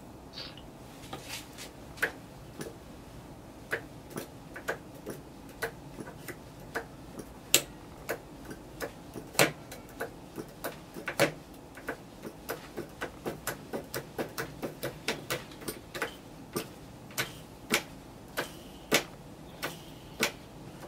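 Vintage Frog 500 spark-ignition model aero engine being flicked over by hand at its propeller: a long run of sharp, irregular clicks, about one to three a second, and the engine never catches and runs.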